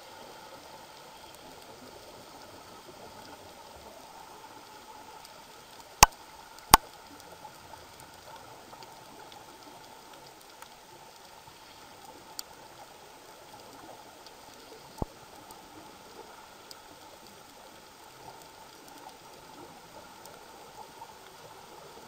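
Steady underwater hiss of a reef dive, with two sharp clicks about six seconds in and two fainter clicks later.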